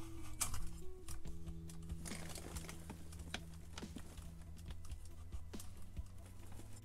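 Scattered light plastic clicks and taps from a screw-in deformable LED garage light being handled, its hinged panels folded into position, over quiet background music.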